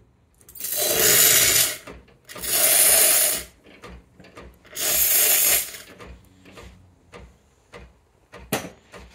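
Ascaso Steel Duo's steam wand purged in three short blasts of hissing steam, each about a second long. A few faint clicks follow, with two sharper knocks near the end.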